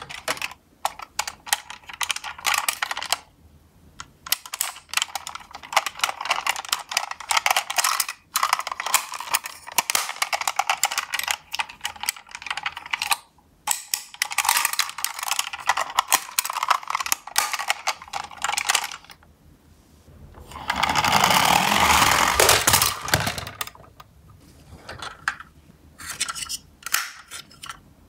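Small plastic toy garbage trucks handled in a cardboard box: stretches of rapid clicking and rattling from their plastic parts and wheels, broken by short pauses, with a louder, steadier rustling for a couple of seconds about two-thirds of the way through.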